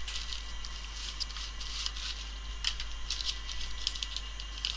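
Faint handling sounds: light rustling and small scattered ticks as a paper napkin is smoothed out and a plastic-wrapped replacement phone display is picked up. A steady low hum runs underneath.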